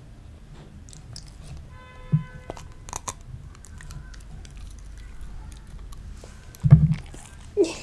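Samoyed biting into and chewing a strip of raw yellow bell pepper close to a microphone: a few soft crunches, then two loud crunches near the end. A short steady tone sounds about two seconds in.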